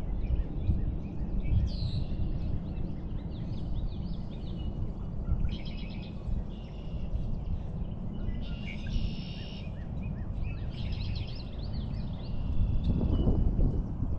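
Songbirds singing repeated high, trilled phrases every second or two over a steady low rumble.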